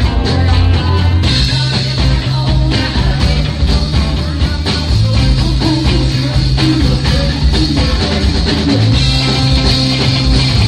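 Live rock band playing loudly: electric guitars over a steady beat.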